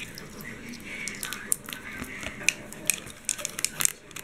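Scattered sharp clicks and small metallic jingles of a USB flash drive on a keyring with a ball chain being handled and pushed into a port of a plastic USB hub.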